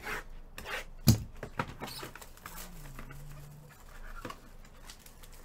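Trading cards and packs being handled on a table by gloved hands: a series of light rustles and taps, with one sharper knock about a second in.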